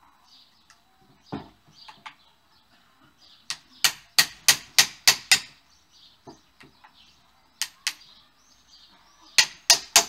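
Hammer striking an adjustable wrench held against the bottom of an SR Suntour XCM suspension fork leg: sharp metal-on-metal clanks. There are a few single blows, a quick run of about seven strikes midway, and a run of four near the end. The blows knock the loosened bolt at the foot of the leg inward to free the piston shaft from the lower leg.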